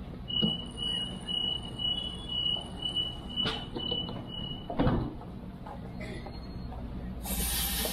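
Train door-closing warning beeps: a high tone pulsing about twice a second for several seconds. A sliding door then shuts with a heavy thud, and a burst of hissing air follows near the end.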